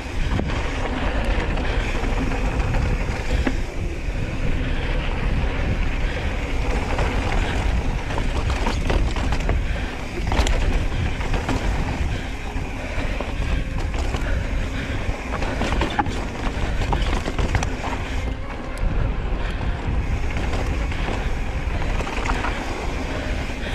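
Riding a Specialized Stumpjumper mountain bike down a dirt trail: wind rushes over the microphone and the tyres roll on dirt. The bike rattles throughout, with frequent sharp knocks and clacks from the frame and chain over rough ground.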